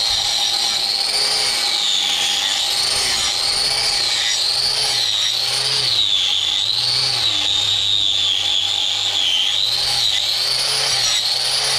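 A handheld power tool used for hoof trimming runs without a break, its whine dipping and rising about once a second as it is pressed into the hoof and eased off.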